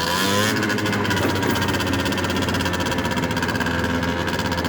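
70cc big-bore two-stroke scooter engine running under way. The revs rise in the first half-second, then hold steady.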